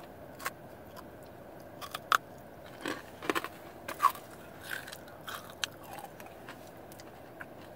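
A person biting into and chewing a chocolate with a crunchy malt-ball centre, close to the microphone: a dozen or so short, sharp crunches spread over several seconds.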